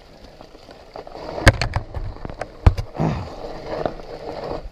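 Sharp knocks and snaps from something along the trail striking a bicycle helmet during a fat-bike ride, the loudest about a second and a half in and again about a second later, over the rough rattle of the ride.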